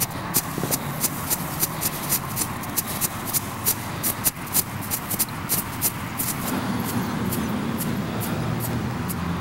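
Ground fountain fireworks spraying with a steady hiss and sharp crackling pops, several a second, which thin out after about six seconds.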